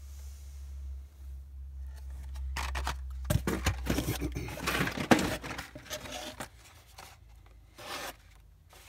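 Carded Hot Wheels blister packs being handled and pulled from the cardboard case: a few seconds of dense plastic and cardboard crinkling, scraping and clicks, starting about two and a half seconds in and dying away near the end, over a low steady hum.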